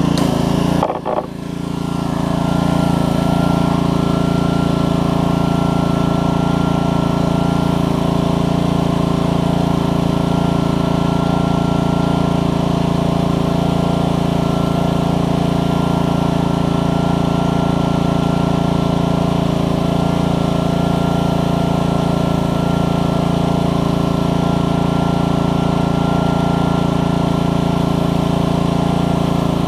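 Honda GCV160 single-cylinder four-stroke engine on a Troy-Bilt pressure washer running steadily under load, with the hiss of the pump's high-pressure spray from the wand. The pump is spraying freely again, no longer binding after an obstruction cleared. A brief dip in level about a second in.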